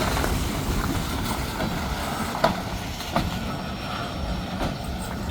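Freight train cars rolling past with a steady low rumble and a few sharp clacks of wheels over the rails, the loudest about two and a half seconds in.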